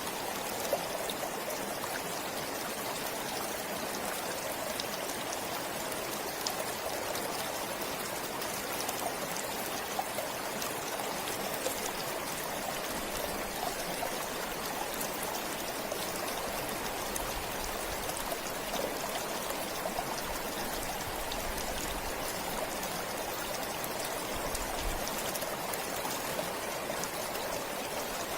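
Forest stream flowing steadily: continuous water rush and trickle, with small scattered splashy ticks.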